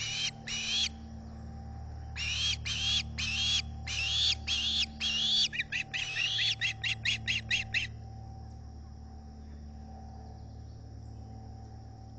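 Osprey calling: a series of sharp, high, upslurred whistles, a couple at the start, then a long run that turns shorter and quicker before stopping about 8 seconds in. These are typical of an osprey begging for food at the nest.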